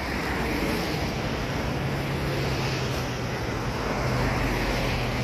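Road traffic: cars driving past on a multi-lane road, a steady rush of tyres and engines with a low engine hum underneath.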